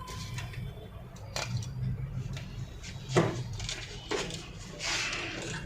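Small tools and parts handled on a phone-repair bench: a few separate light clicks and taps, one clearer knock about three seconds in, and a brief hiss near the end.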